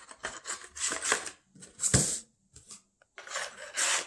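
A hard plastic coin proof-set case and its cardboard box being handled: scraping and rubbing in short bursts, with a sharp click about two seconds in.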